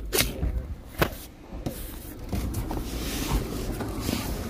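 Handling noise from a phone held in the hand: two sharp knocks in the first second, then a steady rustle of clothing against the microphone with small ticks.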